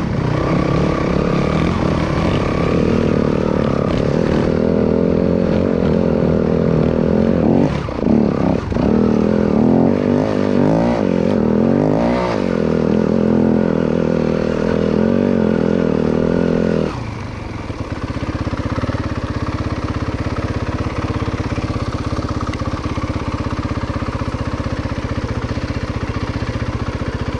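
Yamaha WR250F dirt bike's four-stroke single-cylinder engine running while riding a rough trail, the revs rising and falling repeatedly. About two thirds of the way through the revs drop suddenly and it carries on at a lower, steady chug.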